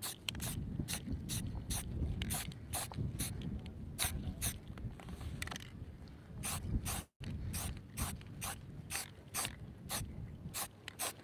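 Aerosol spray paint can sprayed through a stencil in short hissing bursts, about two a second.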